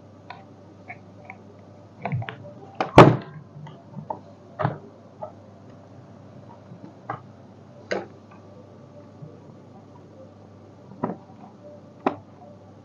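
Scattered clicks and knocks of parts and tools being handled during a hands-on repair, the loudest about three seconds in.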